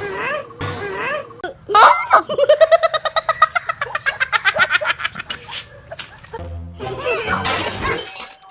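Cartoon soundtrack: a short repeating tune, then about two seconds in a sudden crash-like sound effect, followed by a fast pulsing pitched sound lasting about three seconds and another noisy burst near the end.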